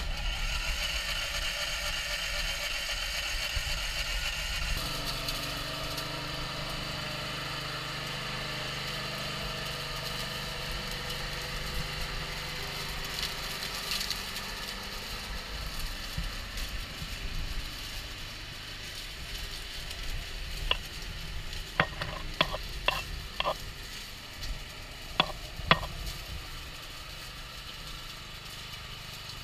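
Petrol lawn mower engine running steadily on a radio-controlled mower, its sound changing about five seconds in and slowly growing fainter as the mower moves off across the lawn. Several sharp clicks sound about two-thirds of the way through.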